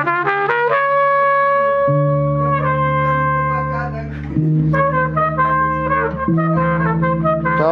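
Trumpet playing a quick run of short notes, then a long held note and further short phrases, over sustained electric bass guitar notes that shift pitch every couple of seconds.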